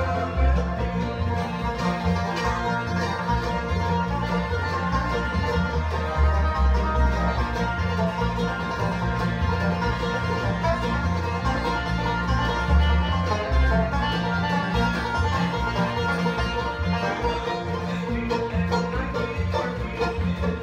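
Bluegrass band playing together: a picked banjo, mandolin and acoustic guitar over an upright bass that keeps a steady beat.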